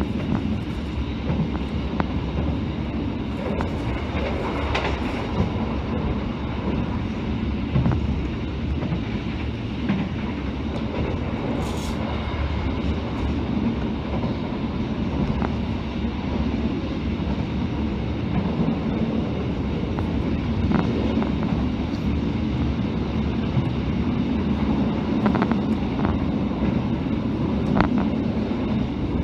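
Passenger train running at speed, heard from inside the coach: a steady rumble of the wheels on the rails, with a few sharp clicks now and then.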